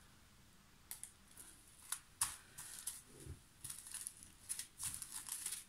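Small plastic zip bags of square diamond-painting drills being handled, crinkling and clicking in irregular short bursts that start about a second in.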